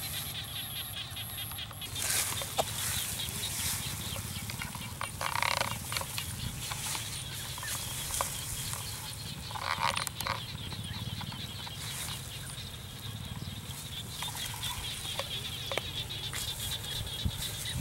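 Outdoor countryside ambience: a steady, rapid chirring chorus of small creatures throughout, with two short, louder animal calls about five and ten seconds in.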